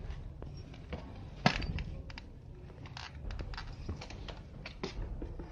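Scuffling and scattered clicks on a tiled floor as an Indian civet is cornered and grabbed, with one sharp knock about a second and a half in.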